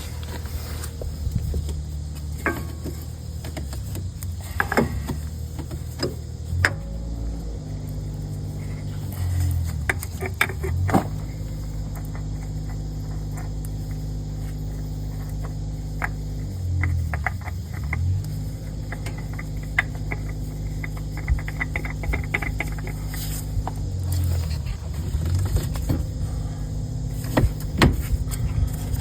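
A steady low machine hum that shifts pitch a few times, with scattered clicks and light rattles of small metal parts being handled.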